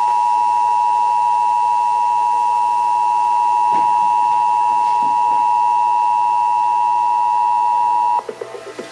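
Emergency Alert System attention signal: the two-tone 853 Hz plus 960 Hz alert tone, held steady for about eight seconds on AM radio, then cutting off abruptly near the end.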